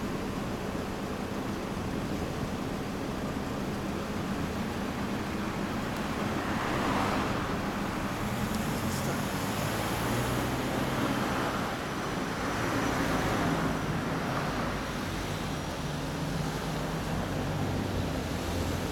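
Kawasaki Z1000's inline-four engine idling steadily through an LCI Parts titanium slip-on muffler, swelling slightly a few times.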